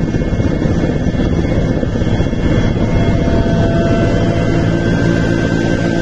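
Helicopter rotor and turbine engine running steadily, heard loud from aboard the aircraft, with a few thin steady whining tones over a dense drone.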